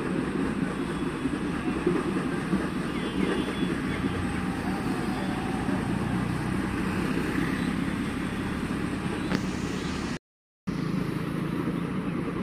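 Steady low rumbling noise that cuts out for about half a second around ten seconds in.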